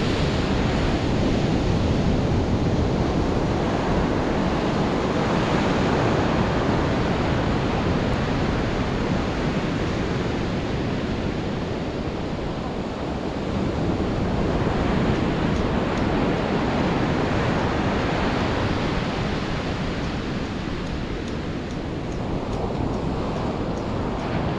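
Ocean surf breaking and washing up the beach, a steady rushing that swells and eases every several seconds, with wind buffeting the microphone.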